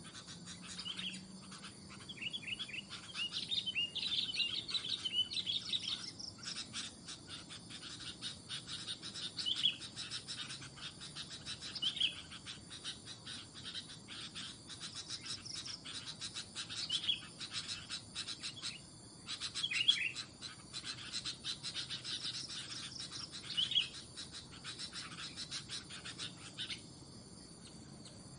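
Sooty-headed bulbuls calling: short chirping calls, a run of them in the first few seconds and then single bursts every few seconds. Insects chirp steadily and rapidly throughout.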